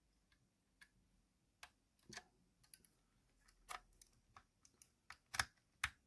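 Faint, scattered small clicks and taps of hard plastic model parts being handled and pressed together, coming more often in the second half, as the plastic tender body of an old Airfix Royal Scot model locomotive is fitted onto its chassis.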